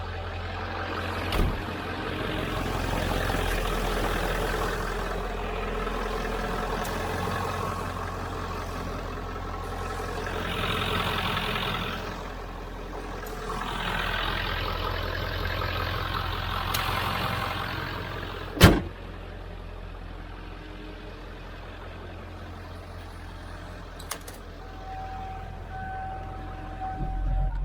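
1997 Ford F350's 7.3-litre Power Stroke diesel idling with a steady low hum; the owner says it has leaking injectors. Stretches of handling noise over it, and one sharp loud bang about two-thirds of the way through.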